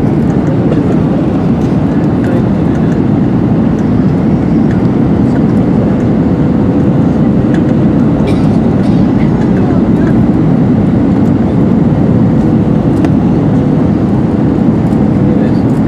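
Steady cabin roar inside an Airbus A321-211 on final approach: rushing airflow over the extended flaps and the CFM56 engines running at approach power, low and even. A faint steady hum joins in about a third of the way through.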